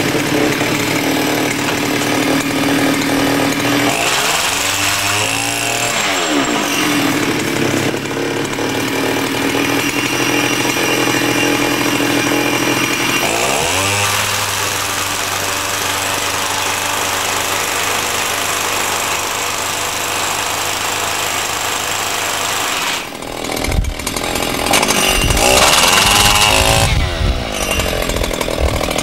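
Airtec Master 35 impact wrench running steadily, its pitch dipping and climbing back several times, with a rougher, louder stretch near the end.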